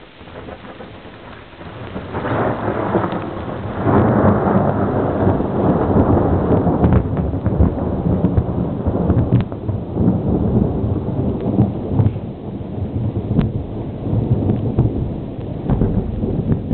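Thunder rolling during a thunderstorm, with rain. The rumble swells about two seconds in, turns loud about four seconds in and keeps rumbling to the end, with scattered sharp ticks over it.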